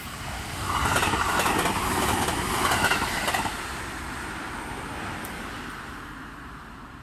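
JR Kyushu limited express Nichirin electric train passing close by at speed, its wheels clattering over the rails. It is loudest for about three seconds, then drops off suddenly and fades as the train runs away.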